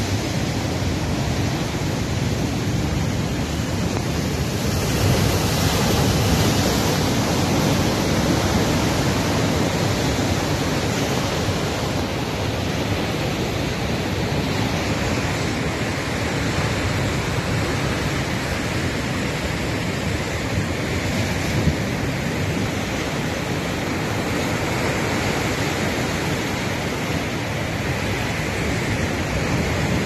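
Heavy Atlantic surf breaking and churning against a rocky shore: a loud, steady wash of rushing water that swells a little about five seconds in.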